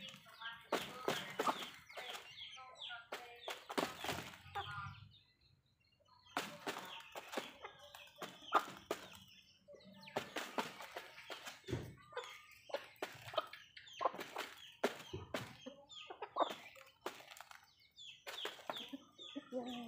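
Backyard hens and a rooster clucking while they feed, with many sharp taps of beaks pecking at a cardboard box and the concrete ground. There is a brief lull about five seconds in.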